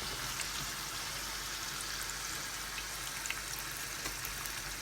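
Hot oil sizzling steadily around sliced vegetable chips deep-frying, with small scattered crackles.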